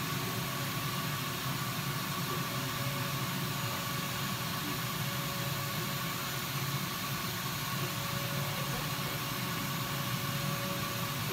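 A 30-watt air-cooled CO2 laser cutter running while it cuts plexiglass: a steady whirr and hiss from its fans and air with a low hum, and a thin whine that comes and goes as the cutting head travels across the sheet.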